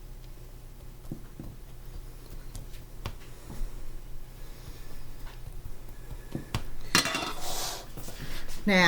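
A spoon clinking and scraping against kitchen dishes while a chopped-vegetable topping is spread and pressed down: a few scattered light taps, then a louder scrape lasting about a second, about seven seconds in.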